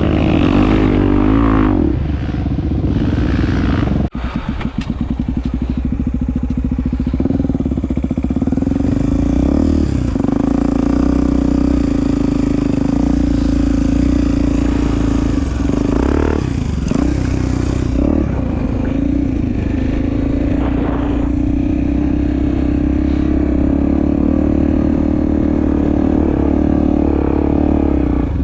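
Honda Tornado motorcycle's single-cylinder four-stroke engine running as the bike is ridden, the pitch rising and falling with the throttle at first and dropping sharply about four seconds in, then holding fairly steady.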